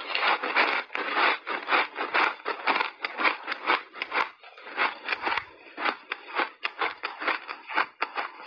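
Matcha-powdered snowball ice being chewed, a rapid run of crisp crunches several times a second, easing off briefly about halfway through.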